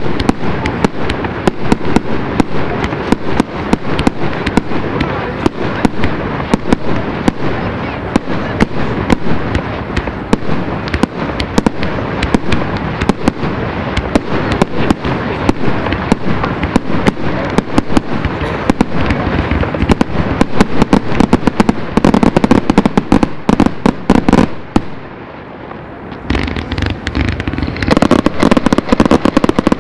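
Fireworks display firing in rapid, continuous volleys: many sharp bangs and crackles a second from bursting aerial effects. A short lull a few seconds before the end, then the firing resumes just as dense.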